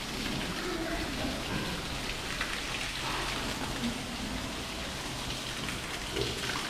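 Water from a hose spraying onto piglets and the wet concrete floor of their pen: a steady hissing patter like rain on a surface.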